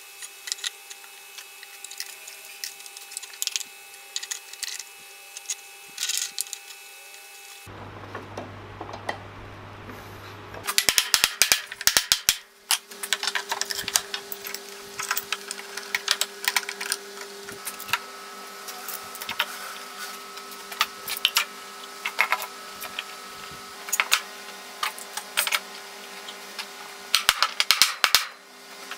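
Metal bar clamps and F-clamps clicking and clanking as they are set and tightened across a glued-up panel of boards, with a run of rapid clicks a little after the middle. Near the end, knocks from a mallet tapping the boards.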